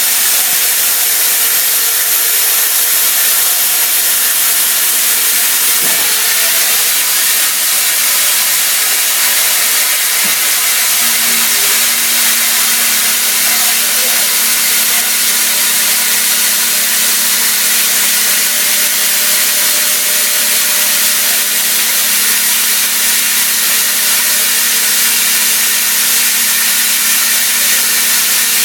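CNC mill cutting 30% silicon-carbide-reinforced aluminium with a CVD diamond end mill under coolant: a loud, steady hiss with a steady low two-note hum beneath it.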